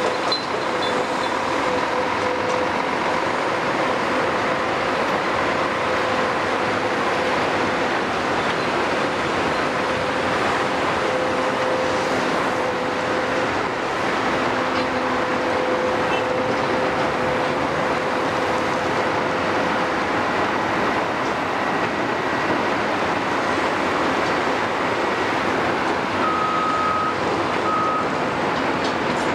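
Steady din of heavy machinery: excavator diesel engines running and a mobile crusher working on concrete rubble. A faint steady whine runs through it and fades out about two-thirds of the way through. Two short high beeps come near the end.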